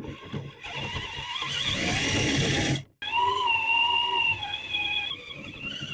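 An RC car's electric motor and two-speed transmission whine as it works over snow, with a hiss that builds during the first few seconds. The sound breaks off abruptly about three seconds in, then returns as a steady whine that wavers slightly in pitch. It is heard close up through a microphone mounted on the car.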